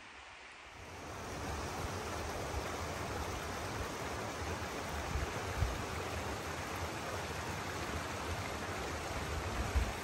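Shallow creek flowing over rocks, a steady rush of water. It comes up about a second in over faint hiss.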